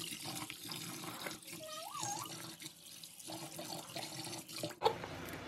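Tap water running into a steel pot in a stainless-steel sink as raw chicken pieces are washed by hand, the water splashing over them. There is a sharp click near the end.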